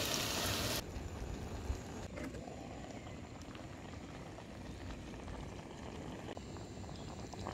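Onions and mushrooms frying in a pan: a loud sizzling hiss for about the first second, then a quieter steady cooking sound.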